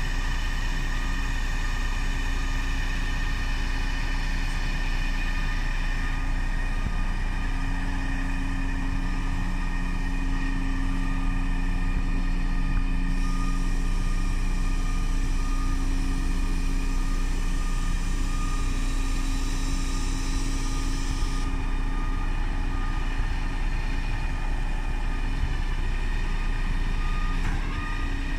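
Heavy truck's diesel engine running steadily while driving the hydraulics that tip a steel two-way dump body to the side. The sound is a constant low hum with steady tones above it, and a further tone comes in about seven seconds in and drops away near the end.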